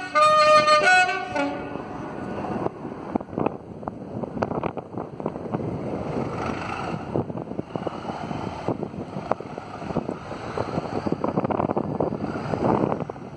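Class 37 diesel locomotive's two-tone horn sounding, stopping about a second and a half in, then its English Electric V12 diesel engine working as it pulls the train away.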